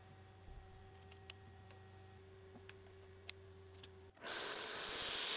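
Faint steady workshop hum with a few light metallic ticks as a steel workpiece is handled and set in the milling vise. Just over four seconds in, a much louder, even rushing noise starts abruptly.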